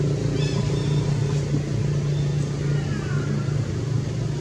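A steady low motor hum, like an engine running nearby, with a few short high chirps about half a second in and a brief falling squeak about three seconds in.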